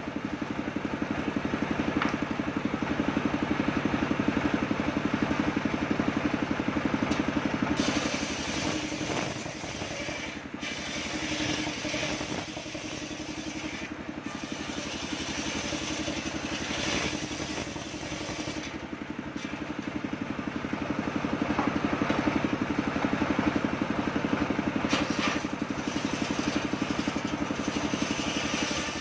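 Homemade engine-driven circular saw bench running steadily while its large blade rips lengthwise through coconut-palm timber. The cutting noise swells and eases as the wood is fed, loudest in the first several seconds and again a little past two-thirds of the way through.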